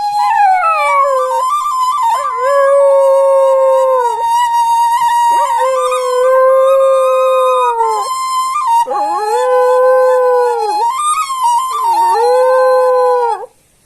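A dog howling along with a Balinese suling bamboo flute. The flute holds a high steady note while the dog gives about five long howls, each sliding down in pitch and then holding lower, with short breaks between them. Both stop shortly before the end.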